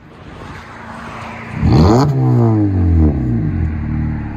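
2019 Honda Civic LX's 2.0-litre four-cylinder revved through a muffler-delete exhaust (2-inch pipe, resonator kept, dual tip): the pitch shoots up about one and a half seconds in, then the revs fall slowly away. A rising rush of noise leads in before the rev.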